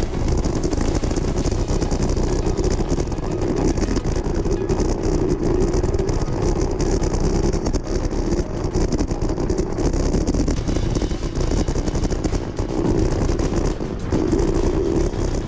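Riding noise picked up by a bicycle-mounted camera: steady wind rush over the microphone with the tyres rolling and crackling over a packed dirt road.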